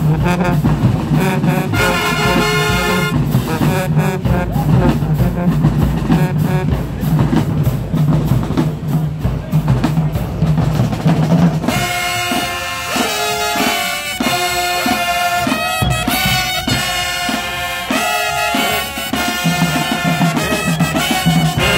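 High school marching band playing: sousaphones, trumpets, trombones and saxophones over drums. About twelve seconds in the music changes abruptly: the heavy bass line drops out and the horns play held chords, and the bass comes back near the end.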